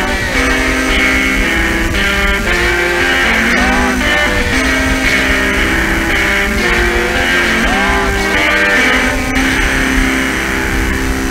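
Lo-fi rock music from a cassette recording: electric guitar notes, some of them bent, played continuously over a low rumble and a hiss.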